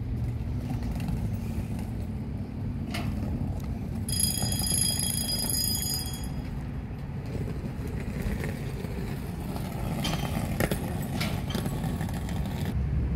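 A steady low rumble, with a high whine of several stacked notes lasting about two seconds, starting about four seconds in, and a few faint clicks.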